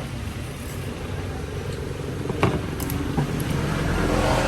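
Motor vehicle running with a steady low road and engine rumble, and one sharp knock about two and a half seconds in.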